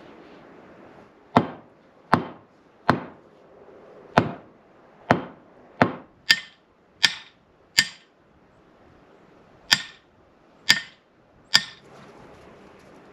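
About a dozen hammer blows at an uneven pace, with pauses between groups. The first few land dull, and the later ones ring bright and metallic.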